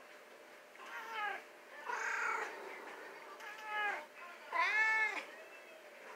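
Cats meowing for food, about four separate meows with the loudest one near the end.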